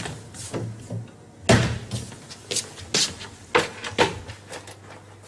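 A door shutting with a bang about a second and a half in, among a run of footsteps and knocks on a hard floor.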